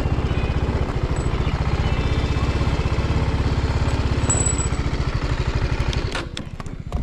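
Single-cylinder 310cc motorcycle engine running steadily at low revs, with a fast, even low thudding. About six seconds in it drops away, and a few sharp clicks or knocks follow.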